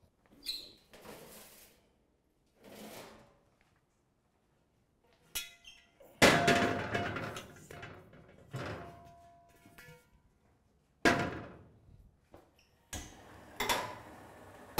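Hammered copper kadhai being handled and set down on a gas stove's grates: a string of separate thunks and clangs, the loudest about six seconds in, some leaving a short metallic ring.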